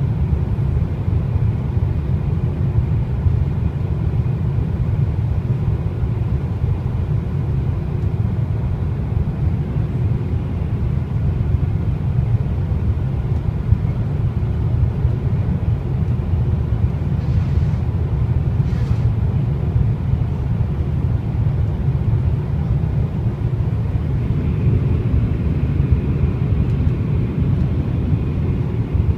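Airliner cabin noise during the approach to land: a steady low rumble of airflow and jet engines, with a faint steady engine whine that grows a little stronger near the end.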